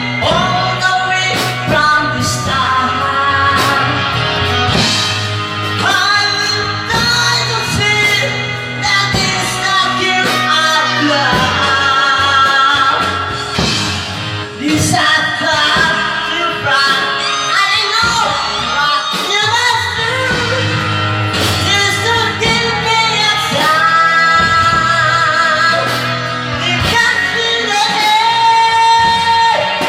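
Music: a pop song with a singing voice over a band backing with a steady beat.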